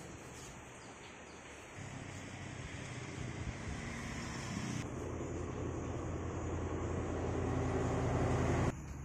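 A motor vehicle's engine rumbling low and steady. It starts a couple of seconds in, grows louder over several seconds and cuts off suddenly near the end.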